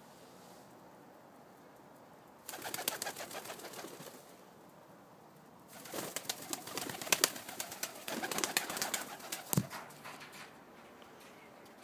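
Pigeons' wings flapping in two rapid fluttering bouts, the second and longer one as a pigeon flies up onto the wooden loft, with a single thump near the end.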